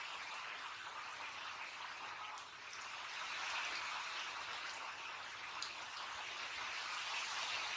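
Heavy rain falling outside, a steady even hiss with a few faint ticks of single drops.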